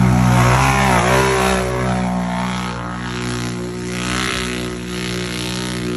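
Side-by-side UTV engine running hard at high revs while driving through a mud pit. About a second in, the pitch dips and climbs again, then holds steady.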